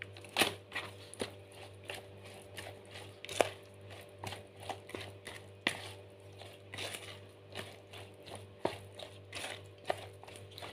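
Plastic paddle stirring thick fritter batter in a plastic bowl, with irregular knocks and wet scrapes as it hits the bowl's sides.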